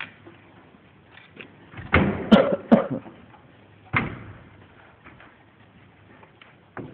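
A quick cluster of clattering knocks and bangs about two seconds in, then a single sharp knock about four seconds in, with a few faint clicks between.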